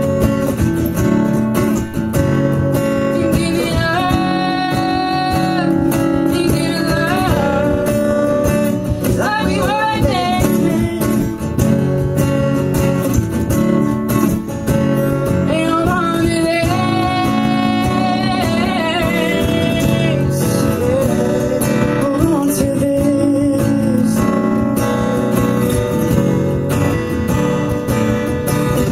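Live acoustic guitar strumming under voices singing long held notes, some with a wavering vibrato, with no clear words.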